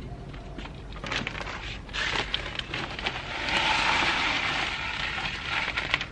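Plastic bag rustling and crinkling as it is handled and shaken. It starts as scattered crackles and becomes a denser, louder crinkle in the middle.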